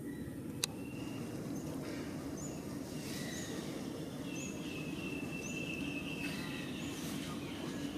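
Outdoor ambience: steady background noise with short high chirps repeating under a second apart and a held high tone through the middle, plus one sharp click less than a second in.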